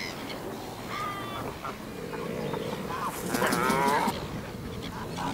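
Birds calling at a pelican nesting colony: a short call about a second in, then low drawn-out, moo-like calls, with a wavering, warbling call near the middle.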